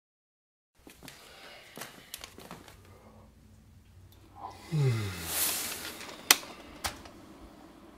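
After about a second of silence, a man yawns, his voice falling in pitch and trailing into a loud breathy exhale. Then come two sharp clicks from the power button of a drip coffee maker being pressed, the first the louder.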